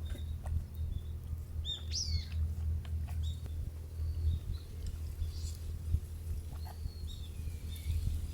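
Wild birds calling a few times: a short call that sweeps up and back down about two seconds in, and a longer falling call near the end. Beneath them runs a steady low rumble.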